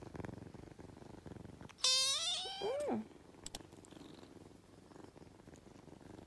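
A tabby-and-white kitten purring while being petted, with one loud meow about two seconds in; the purring continues more faintly afterwards.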